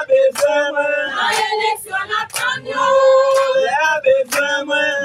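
A group of men, women and children singing together in Haitian Creole, holding long sung notes. It is a protest song against the uncleaned Taba canal.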